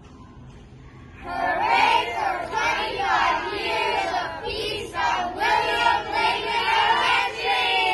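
A group of children's voices together in unison, starting about a second in, with a short break near the middle.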